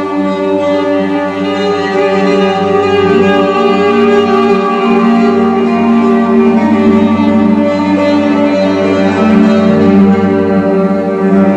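Music of sustained, layered tones held over a steady low drone, shifting slowly in pitch.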